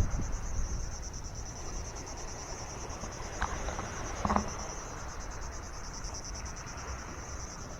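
A steady high-pitched chorus of crickets trilling without a break, over a low rumble. Two brief faint sounds come about halfway through.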